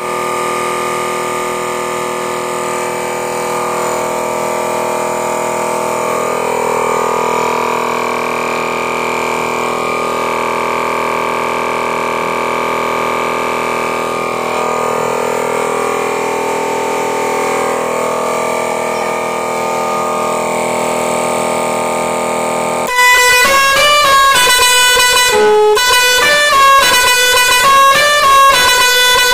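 Multi-trumpet electric pressure horn set sounding a steady held chord of several horn tones. About 23 seconds in it gets louder and switches to a tune of short notes stepping up and down in pitch, as a musical horn does.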